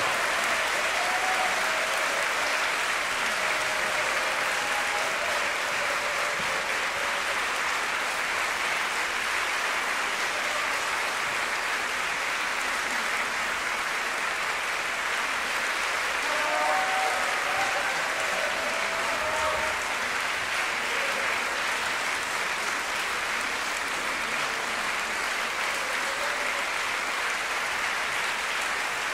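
Large audience applauding steadily in a concert hall, an unbroken wash of clapping throughout.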